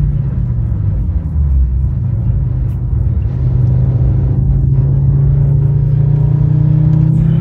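The Fiat Stilo Abarth's 2.4-litre 20-valve five-cylinder engine running under power. Its note dips briefly about a second in, then holds steady.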